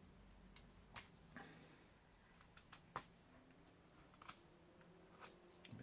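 Mora carving knife whittling a hazel stick: quiet, scattered clicks of the blade cutting into the wood, roughly one a second, the sharpest about three seconds in.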